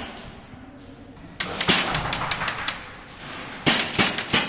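Airsoft gunfire: quick strings of sharp shots, starting about a second and a half in and coming again near the end.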